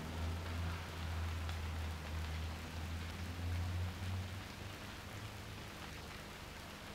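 Steady hiss over a low rumble, easing off slightly in the last couple of seconds.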